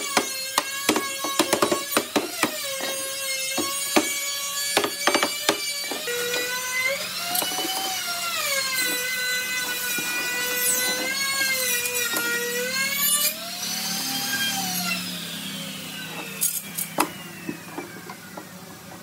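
Wooden mallet knocking on a hardwood carved panel frame, a quick irregular series of knocks in the first several seconds and a few more near the end. Under it runs a high whine that rises and falls in pitch.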